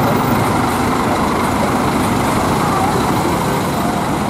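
Large bus's diesel engine idling close by, a steady loud rumble with street noise around it.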